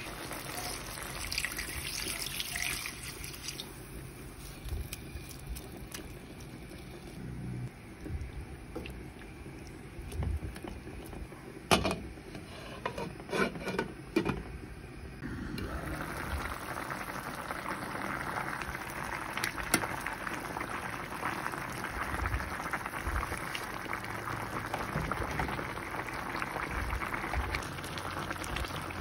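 Chicken and bamboo-shoot broth cooking in a wok: a light sizzle at first, a few sharp knocks of the glass pot lid around the middle, then a steady hiss of the broth simmering through the second half.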